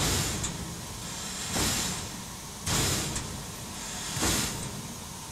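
Steam locomotive, the Southern Pacific Daylight, blowing steam from its cylinder cocks in four loud hissing blasts about a second and a half apart, over a low rumble.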